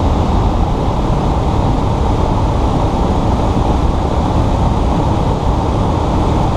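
Steady cabin noise of a Cessna 172S in flight on final approach: the engine and propeller drone evenly, mixed with rushing airflow.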